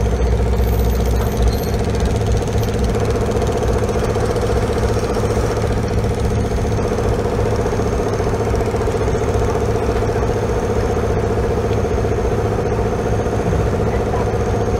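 Engine running steadily at constant speed: a continuous low drone with a buzzing tone that holds unchanged throughout.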